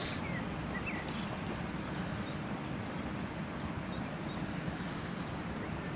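Steady rush of wind on the microphone and water from a trout lake, with a few faint short chirps. A brief splash right at the start as a trout thrashes in the landing net.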